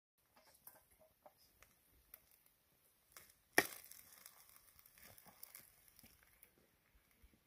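Metal ladle scooping cooked rice out of an aluminium pot, with faint scrapes and light clicks, and one sharp metal clink with a short ring about three and a half seconds in.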